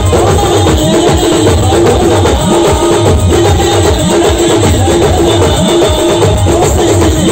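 Loud live band music: a steady, driving drum beat with a short melodic phrase repeating over it.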